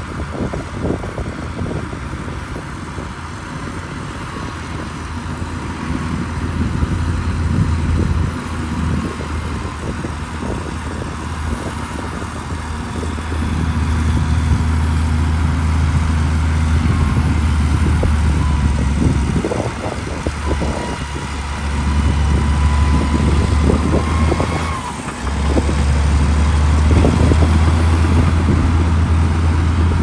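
Liugong B160C crawler bulldozer's diesel engine working under load as it pushes a mound of soil. The low engine drone swells in long stretches and eases briefly between them, with scattered knocks.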